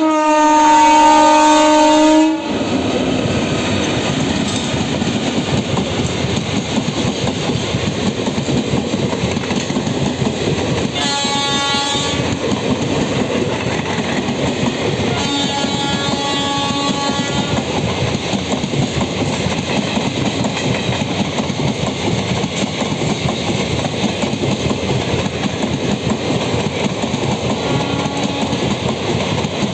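An Indian Railways WAP-4 electric locomotive's horn sounding and stopping about two seconds in, then the steady rumble and clickety-clack of the express train's coaches passing. Shorter horn sounds come twice partway through.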